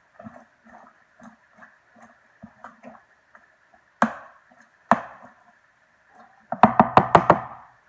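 A spoon stirring chicken, beans and salsa in a plastic Tupperware microwave pressure cooker, in soft strokes about two to three a second. Then two sharp knocks, and near the end a quick run of about seven loud clicks.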